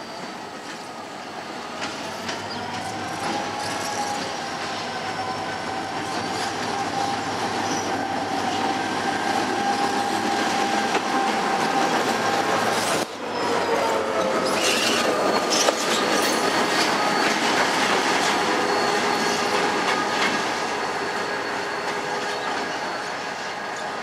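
GT22 diesel locomotive moving slowly over curved track and points, its wheel flanges squealing in long, wavering high tones over the running of the engine. It grows louder as it passes close by, with a brief sudden break about halfway through.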